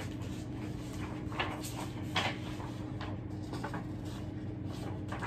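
Steady low hum of room noise, with a handful of brief soft rustles and knocks from people shifting and handling things.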